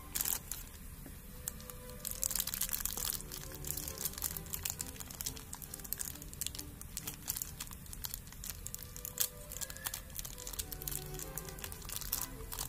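Thin clear plastic bags crinkling and crackling in the hands as small toy figure parts are unwrapped, over quiet background music.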